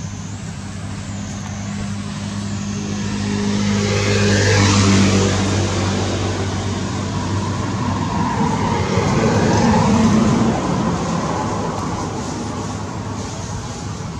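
Motor vehicles passing by: a steady engine hum that swells to its loudest about five seconds in, swells again around ten seconds, then fades.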